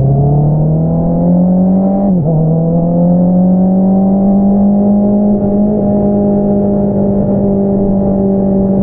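Honda CBR650R inline-four engine through an Akrapovič single-outlet exhaust, accelerating under way. The revs climb, drop briefly at a gear change about two seconds in, then hold steady and high.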